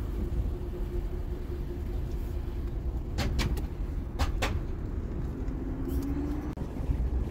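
Steady low rumble of vehicle traffic with wind buffeting the microphone, a faint engine hum and a few sharp clicks a little past the middle.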